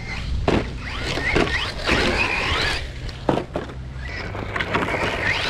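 Brushless electric motor and drivetrain of a 1/8-scale 4WD RC rally car whining, rising and falling in pitch with the throttle, with a few sharp knocks as the car lands and runs over the dirt.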